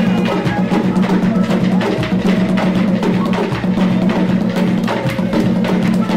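Tambor de crioula drumming: hand-beaten wooden log drums with skin heads playing a fast, dense rhythm. Sharp clicking strokes sound over a steady low drum tone.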